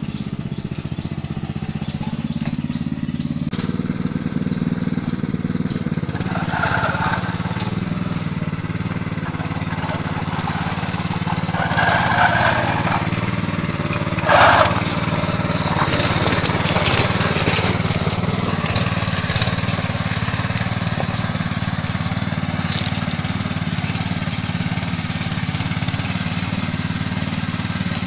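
Small engine of a motorized hauling cart running steadily under a load of oil palm fruit bunches. A sharp knock about halfway through is followed by a few seconds of clattering.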